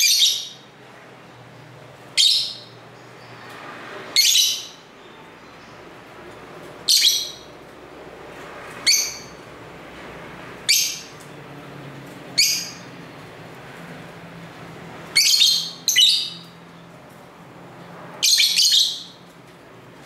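Caged lovebirds calling: about ten short, high-pitched chirps, roughly every two seconds, the last one a little longer.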